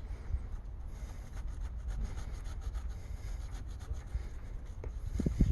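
Air pump running steadily with a low hum and quick, even strokes, inflating a tire just repaired with a plug. A few knocks near the end.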